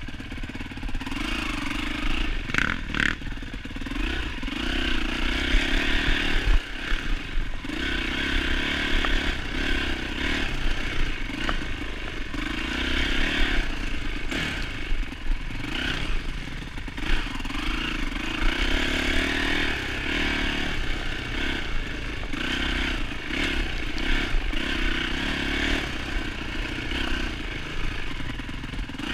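Dirt-bike engine, a 2007 Yamaha YZ450F four-stroke single, being ridden, revving up and backing off again and again every second or two as the rider works the throttle.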